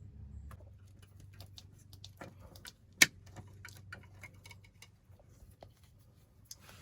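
Scattered small clicks and taps of hands and tools working on an RV's LED light fixture as it is being disconnected, with one sharp, louder click about three seconds in.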